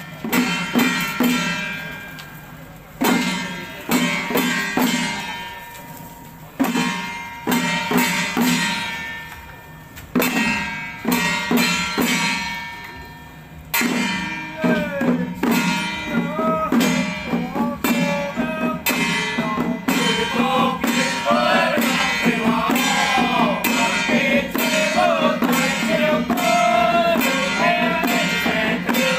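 Taiwanese xiaofa ritual troupe music: spaced percussion strikes, each ringing out for a second or two. From about halfway, the troupe's chanting comes in over steady percussion.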